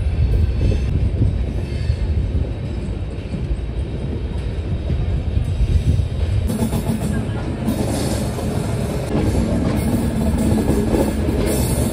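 Sachkhand Express passenger coach running on the rails, a steady low rumble heard through its open door, with music playing over it.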